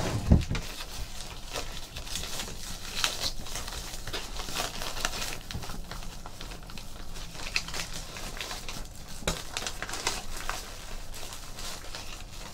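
Crinkling of a silver foil drawstring pouch as hands open it and pull a baseball out, in irregular crackles, with a knock from the cardboard box being opened near the start.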